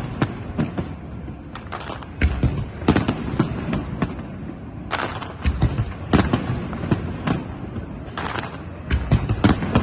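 Fireworks going off: many sharp cracks and booming bursts at irregular intervals, some in quick clusters, over a continuous rumble of distant explosions.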